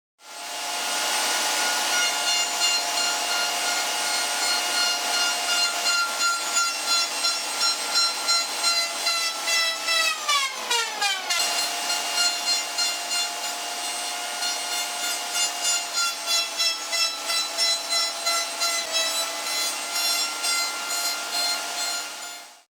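Table-mounted router spinning a simple molding bit that cuts the end of a wooden rod: a steady high whine with a pulsing cutting noise as the rod is worked against the bit. About ten seconds in, the whine dips in pitch for a second, then recovers.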